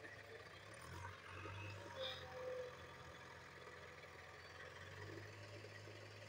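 Faint, steady low hum of a tractor engine running, swelling slightly about a second in and again near the end.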